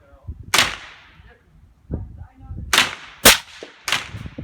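Rifle shots: four sharp cracks, three of them close together in the second half, the loudest about three seconds in, each with a short echo.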